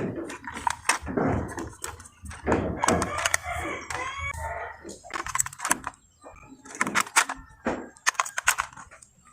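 A rooster crowing, over repeated clicks and clatters of plastic toy pieces being handled.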